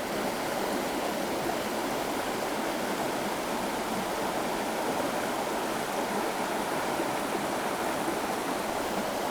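River water running steadily, a constant rushing noise.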